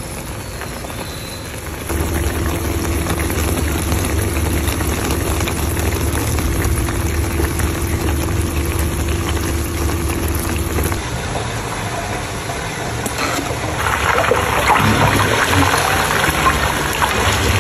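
Pork mesentery boiling on low heat in a pan as its fat renders out, the liquid bubbling steadily. A steady low hum runs under it from about two seconds in until about eleven, and the bubbling gets louder near the end.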